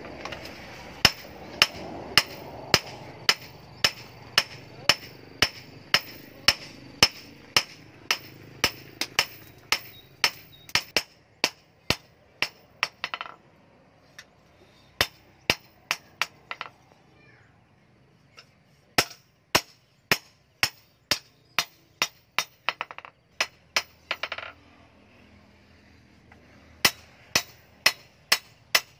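Hand hammer forging a red-hot steel billhook blade on a small post anvil: sharp, ringing metal-on-metal strikes about three a second, in runs broken by short pauses.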